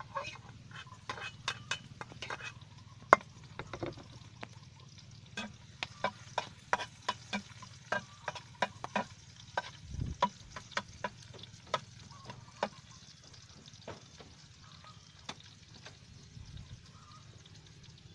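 Metal utensil knocking and scraping against a wok as pond snails in their shells are stirred in hot oil, with light frying sizzle underneath. The clicks come about once or twice a second and thin out after about thirteen seconds.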